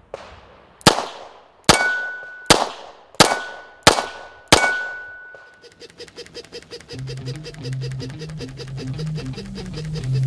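Six shots from a 9mm double-action revolver, fired about one every 0.7 s, each with a reverberant tail and a high ring lingering after several of them. Then a rapid, even clicking from plastic push-toy ducks rolling on a running treadmill, with low musical tones starting under it.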